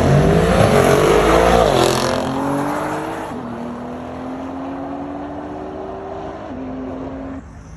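Car engine under hard acceleration through the gears: the pitch climbs, then drops at each upshift, three times. It is loud at first and fades as the car pulls away, then cuts off near the end.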